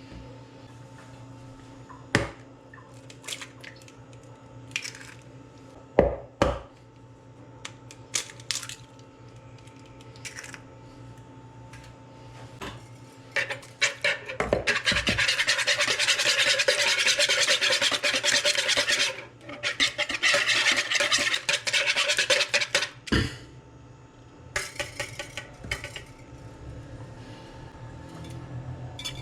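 Kitchen utensils knocking against bowls and dishes, then a utensil scraping rapidly in a bowl for about eight seconds, as when mixing batter.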